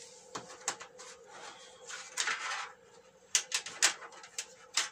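Handling noises of LED backlight strips on a TV's sheet-metal backlight tray: a series of sharp clicks and taps, with a rustling stretch about two seconds in. A faint steady hum runs underneath.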